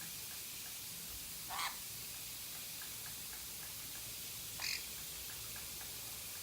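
Two short parrot squawks, about three seconds apart, over a steady hiss.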